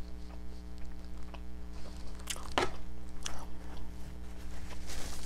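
Soft close-microphone mouth and fork noises, a few faint clicks, over a steady electrical hum, with one louder rush of sound about halfway through.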